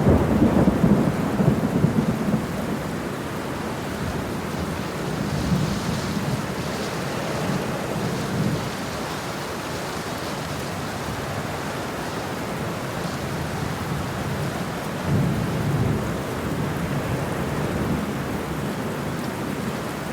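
Thunderstorm: steady heavy rain with rolling thunder. A loud low rumble of thunder opens, and fainter rolls come again about halfway and near the three-quarter mark.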